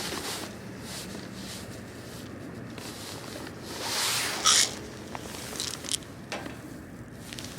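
Handling and rustling sounds: a swell of rustling that ends in a short, sharp scraping burst about four and a half seconds in, followed by a few small clicks.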